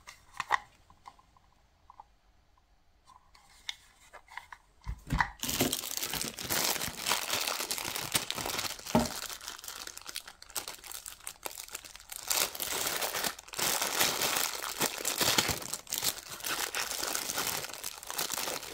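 A few faint taps, then from about five seconds in a small clear plastic bag crinkling and rustling continuously, in uneven loud and soft spells, as it is handled and opened.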